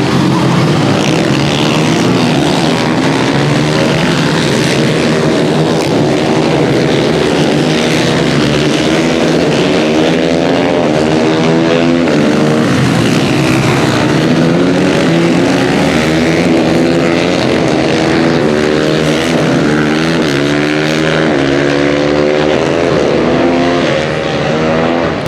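Supermoto racing motorcycles running hard on the circuit: several engines overlapping, their pitch repeatedly rising and falling as they accelerate, shift and brake, with a brief dip in loudness near the end.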